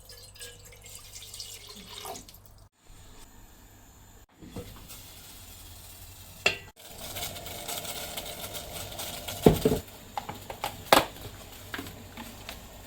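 Water running from a kitchen tap and splashing into a sink, with two sharp knocks in the second half.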